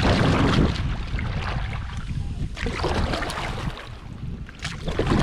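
Strong wind buffeting the microphone with a constant low rumble, over the wash of water from a canoe paddling into a headwind. It swells louder three times.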